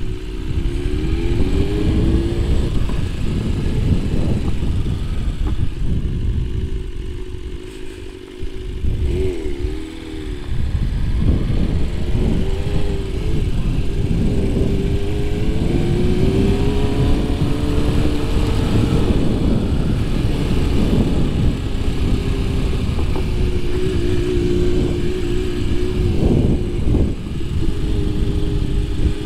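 BMW S1000RR's inline-four engine running at low road speed, its pitch rising and falling as the throttle opens and closes. It drops to a quieter low rumble around eight seconds in, then picks up again.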